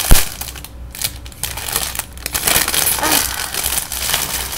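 Packaging crinkling and rustling as a doll's coat is unwrapped, with one sharp knock just after the start.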